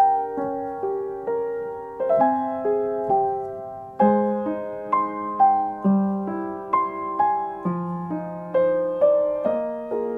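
Background piano music: a gentle melody of struck notes that ring and fade, about two notes a second.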